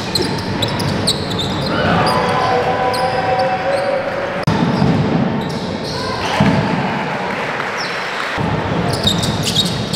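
Basketball game on an indoor court: the ball being dribbled on the wooden floor, shoes squeaking, and players' voices calling out.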